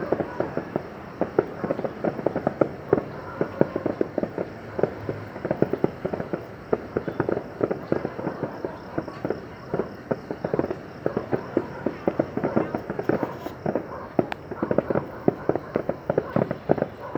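Fireworks display: many firework bursts popping and crackling in quick, irregular succession, several cracks a second without a break.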